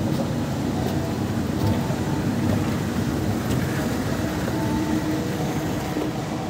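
Busy shopping-mall ambience: a steady murmur of many distant voices and footsteps in a large echoing hall.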